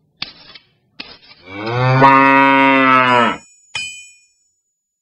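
A cow mooing once: a single long, low moo of about two seconds, held at a steady pitch. Two short scratchy noises come before it, and a brief clink follows it.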